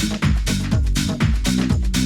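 Disco music playing loud, with a steady dance beat and a strong, bouncing bass line.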